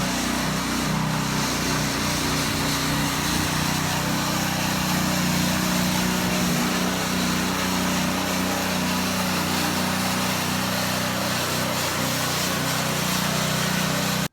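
Small petrol engine running steadily at constant speed with a low hum, cutting off suddenly at the end.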